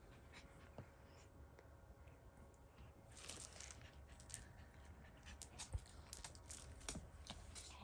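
Faint light clicks and taps of small plastic toy figurines being handled, most of them in the second half.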